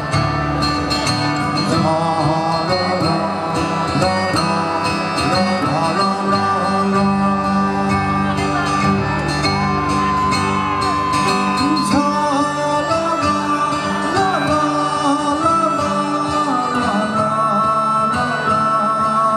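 Live band playing a song through a PA, with acoustic guitar strumming and a singing voice over it.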